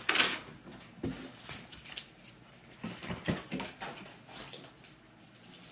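Packaging being cut and torn open by hand: a run of short scrapes, rips and knocks, the sharpest right at the start and a cluster about three seconds in.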